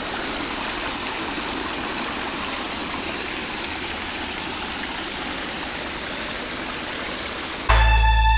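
Water spilling over a small rock cascade in a creek: a steady, even rush. Music cuts in loudly near the end.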